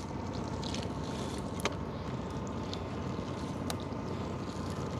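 Water trickling and dripping from a wet gill net being hauled aboard a small boat, over a steady low hum, with two sharp clicks, one about one and a half seconds in and one near four seconds.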